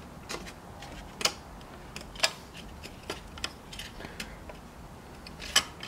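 Scattered light clicks and taps of hard plastic taillight parts being handled and fitted together on a workbench, at an irregular pace of about one click a second.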